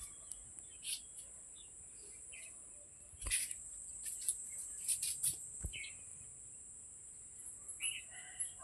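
Outdoor yard ambience: a steady high insect buzz with scattered short bird chirps over it. Two soft low thumps come about three and five and a half seconds in.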